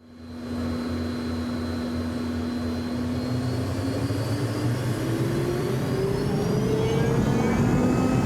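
Jet aircraft engine running. It fades in quickly, then a steady rush carries a whine that rises in pitch from about three seconds in as the engine spools up, growing slowly louder.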